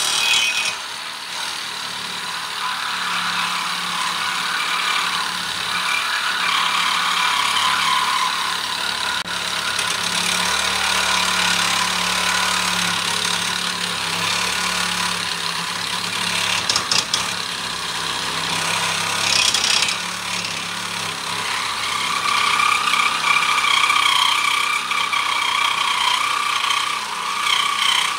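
Small cordless reciprocating saw running steadily as its blade cuts through steel angle iron: a steady motor hum under the grating rasp of the blade on metal.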